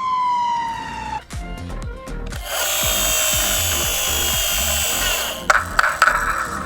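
Toy fire truck's siren sound gliding down in pitch and cutting off about a second in, then a loud, drill-like whirr for about three seconds, with a few crackles near the end, over background music.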